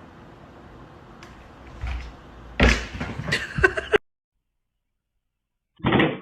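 A sudden loud bang about two and a half seconds in, followed by a few sharper knocks over the next second, then a cut to dead silence.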